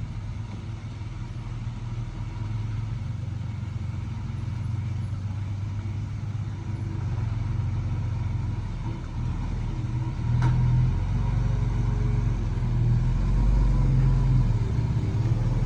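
Heavy diesel earthmoving machinery running, a low engine rumble that grows steadily louder, with a sharp click about ten seconds in.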